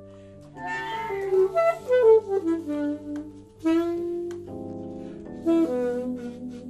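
Jazz duet improvisation: a saxophone plays short melodic phrases, with a quick falling run about two seconds in, over held lower notes from a second instrument.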